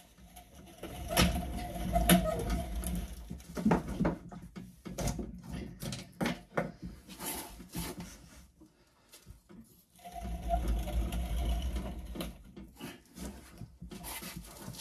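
Tools clinking and knocking as they are handled, with a small electric motor running in two short stretches, near the start and about ten seconds in.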